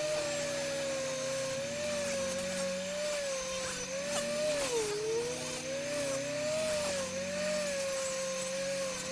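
Small power tool's motor whining steadily, its pitch wavering and dipping briefly near the middle as it is pressed against the work.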